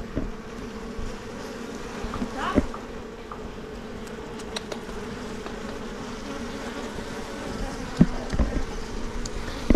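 A mass of honey bees buzzing in a steady hum, with a knock about two and a half seconds in and a louder one near eight seconds.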